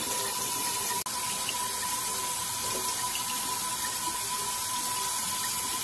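Kitchen faucet running steadily into a stainless steel sink, the stream splashing over a smoked turkey wing being rinsed under it. The sound cuts out for a moment about a second in.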